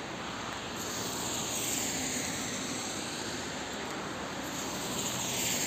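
Steady outdoor background noise without any clear single source. It swells up twice, about a second and a half in and again near the end.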